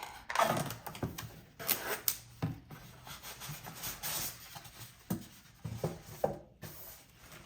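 Cardboard packaging being handled and opened: irregular rubbing and scraping of the box and its flaps, with a few sharp knocks.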